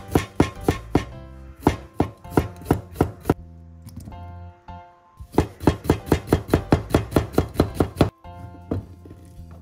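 Kitchen knife slicing vegetables on a wooden cutting board: two runs of quick, even cuts, about three to five a second, with a pause of a couple of seconds between them.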